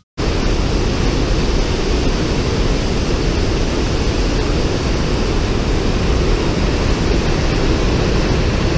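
Loud, steady roar of rushing water from the Yellowstone River's rapids pouring over the brink of the 109-foot Upper Falls.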